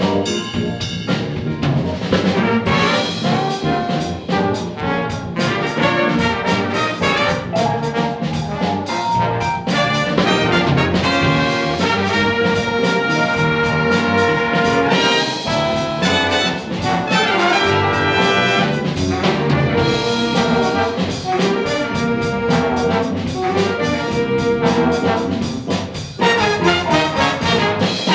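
Big band jazz orchestra playing a funk jazz tune live: trumpet, trombone and saxophone sections sounding held chords over drum kit, bass and piano.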